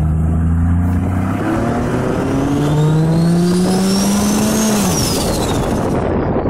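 Turbocharged GMC Envoy's 4.2-litre inline-six accelerating hard, its engine note rising while the GT45R turbo's whistle climbs with it. About five seconds in the throttle closes: the engine note drops, the turbo whistle winds down, and a rushing hiss follows as the blow-off valve vents.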